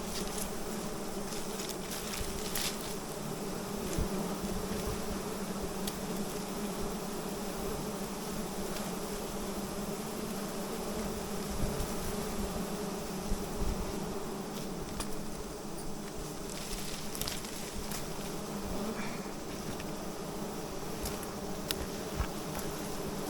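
A swarm of wild honeybees buzzing in a steady, dense drone, with a few faint clicks scattered through it.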